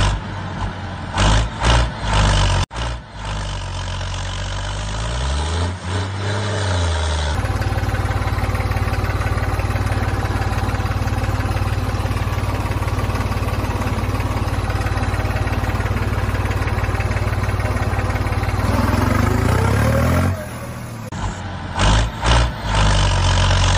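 Tractor engine running, with a few short revs early on. Its pitch rises around six seconds and it then runs steadily, with another rise in pitch and more short revs near the end.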